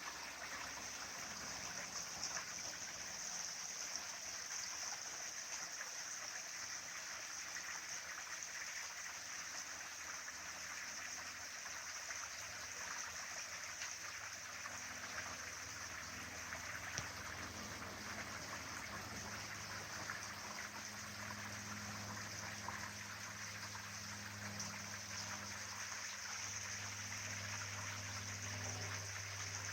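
Small mountain stream trickling and babbling over rocks, a steady rush of water. A faint low hum joins it about halfway through.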